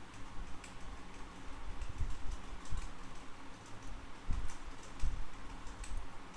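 Irregular light clicking of a computer keyboard and mouse while working at the computer, with a few low thumps over a faint steady hum.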